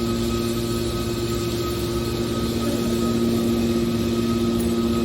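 Hydraulic scrap-aluminium baler running: its electric motor and hydraulic pump hum steadily at an even pitch.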